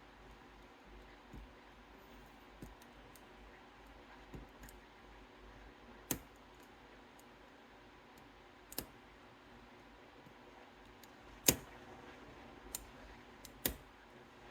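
Scattered small metallic clicks from the pins of a six-pin Goal P lock being picked, with pins setting and dropping back under the pick. The loudest click comes late on.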